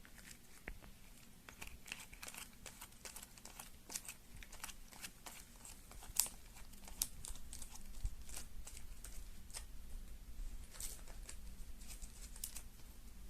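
Board-game cards and their packaging being handled: irregular light clicks, crinkles and rustles, with one sharper click about six seconds in.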